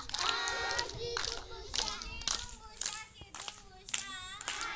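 A group of children singing together and clapping their hands, with sharp claps repeating through the singing.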